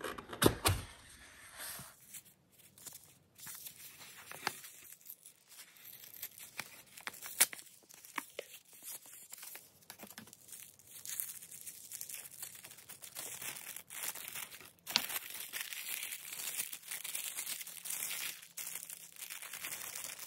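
Hands opening a kraft cardboard box and handling the paper pieces inside, with scattered rustles and clicks, then tissue paper crinkling steadily during the last few seconds as a tissue-paper wrapping around small brass charms is unfolded.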